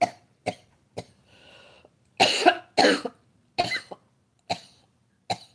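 A woman coughing in a fit of about eight short, sharp coughs, loudest in the middle.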